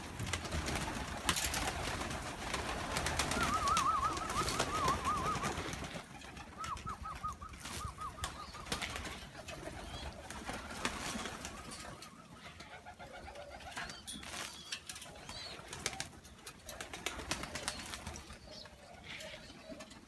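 A flock of domestic fighting pigeons feeding together on the ground: cooing and calls, wing flaps and pecking. A wavering high-pitched call comes twice in the first half.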